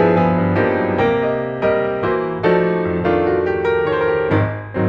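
Background piano music: a gentle melody over chords, a new note struck every half second or so.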